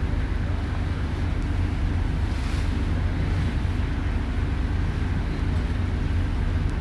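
A purse seiner's engine runs steadily under way, a low drone mixed with the sea rushing past the hull and wind on the microphone.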